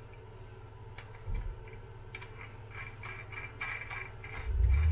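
Light metallic clicks and clinks of small motorcycle gearbox parts being handled, with a louder low rumble near the end.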